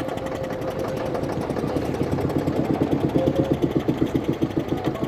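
Motorboat engine running with a rapid, regular pulsing beat, growing louder about halfway through.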